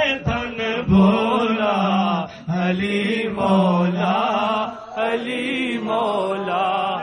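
Male devotional chanting of a Sufi naat refrain, sung in long held phrases with short breaks between them.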